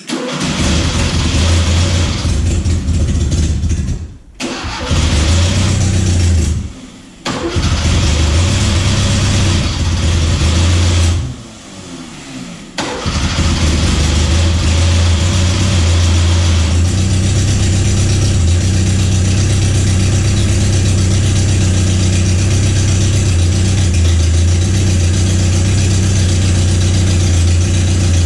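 Fiat 850 Sport Spider's small four-cylinder engine starting: it fires at once, falters and drops away briefly three times in the first thirteen seconds or so, then settles into a steady run.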